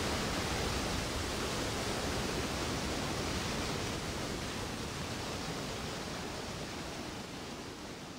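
Rushing torrent of floodwater surging out of a tripped timber driving dam and over logs, a steady rush that slowly fades.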